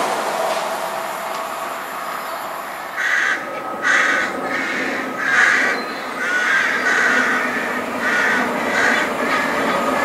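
A bird giving a series of short, repeated calls, starting about three seconds in. Beneath it is the fading rumble of a train that has just passed.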